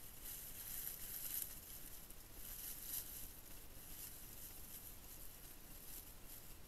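Faint rustling and crackling of dry leaf litter as a wild boar moves through it, strongest in the first second and a half and again around three seconds in.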